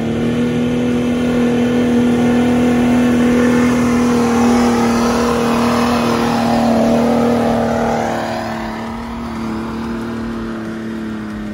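An off-road vehicle's engine revving high and held at a steady pitch while driving through deep, slippery mud. It gets quieter about eight seconds in.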